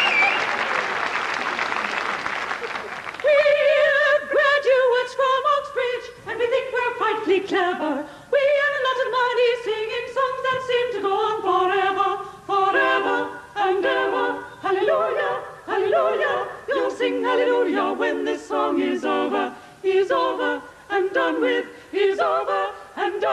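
Audience applause dies away, and about three seconds in three women's voices start singing unaccompanied in harmony, with marked vibrato, in short phrases.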